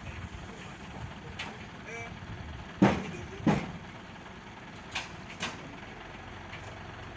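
Heavy vehicle engine running low and steady, with four sharp metal clanks, the loudest about three seconds in.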